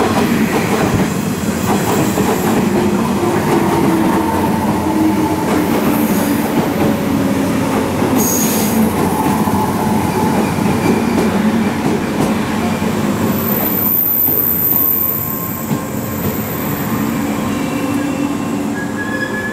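JR West 381 series electric express train pulling in and braking to a stop: wheels rumbling and clattering over the rails, motor whine falling in pitch as it slows, and a high brake squeal about fourteen seconds in, after which the running noise drops away.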